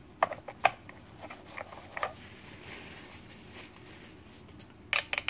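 A small cloth rubbing and dabbing on the hard plastic body of a Fish Mate F14 fish feeder, heard as scattered light rustles and small clicks, with a few sharper clicks near the end.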